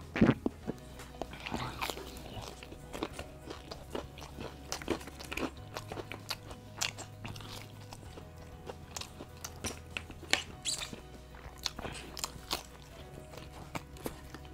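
Crispy fried chicken being bitten and chewed close to the microphone: scattered crunches and crackles of the breaded crust, the loudest right at the start. Background music with a low bass line runs underneath.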